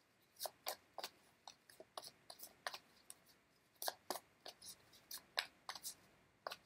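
Tarot cards being shuffled by hand: a faint, irregular string of soft card snaps and slaps, about three a second.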